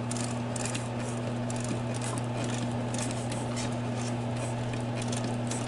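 Kodak Pageant 16mm projector's mechanism being turned by hand with its manual test knob, the film advancing through the threading path with irregular light clicking and ticking, over a steady low hum.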